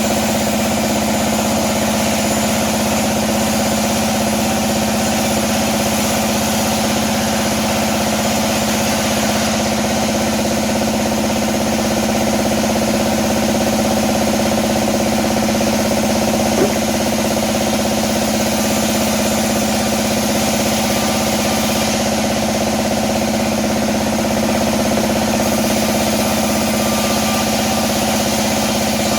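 Sawmill bandsaw running steadily with a constant mechanical hum, with one short knock a little past halfway.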